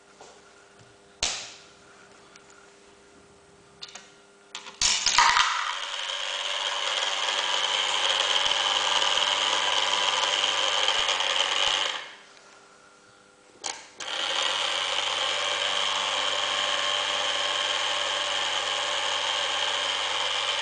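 A few sharp clicks, then the small electric motor of a model parking barrier runs with a steady whirr for about seven seconds as it drives the bar. It stops, a single click follows, and the motor starts again and runs on.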